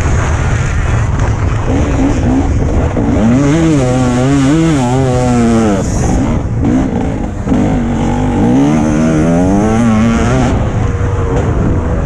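TM 300 two-stroke motocross bike engine being ridden hard, its pitch repeatedly climbing under throttle and dropping as the rider backs off and shifts, with a sharp drop about halfway through before it climbs again. A constant rush of wind and track noise runs underneath.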